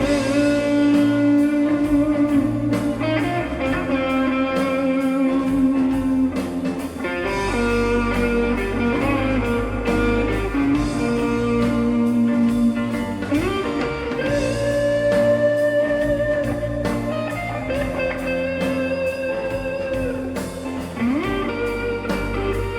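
Live blues-rock band playing an instrumental intro: an electric guitar lead holds long notes, with upward bends, over bass and a steady drum beat.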